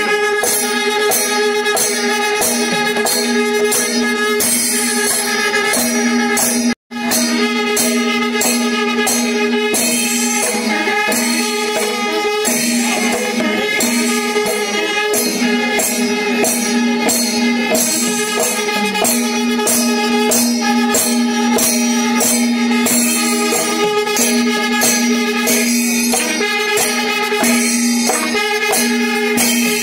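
Kerala temple percussion ensemble playing loud and fast: rapid clashing of small cymbals over drums, with a steady held tone running under it. The sound cuts out completely for a moment about seven seconds in.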